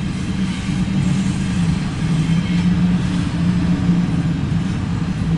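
Double-stack intermodal train cars rolling past, a steady rumble of wheels on the rails, heard from inside a parked vehicle.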